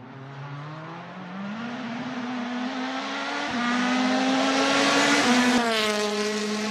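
A motor vehicle's engine rising in pitch and getting louder through several gear changes, then dropping in pitch as it passes by.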